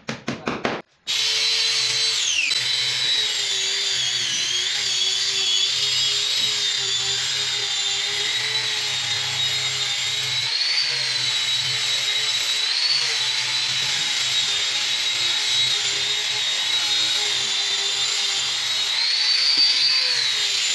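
A few quick hammer taps, then about a second in a handheld electric disc sander (an angle grinder fitted with a sanding pad) starts and runs steadily with a high whine, sanding the face of a solid wood door. Its pitch lifts briefly near the end.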